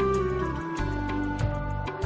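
Background music with sustained melodic notes over a bass line and a steady, evenly spaced percussive beat.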